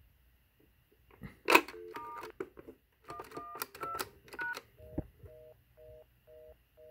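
A sharp click, then several short touch-tone (DTMF) key beeps from a Western Electric telephone keypad. From about five seconds in, the Northern Telecom DMS-10 switch sends a fast busy (reorder) tone, two tones pulsing on and off about twice a second, instead of an accepted signal: the dialed feature code is not being taken.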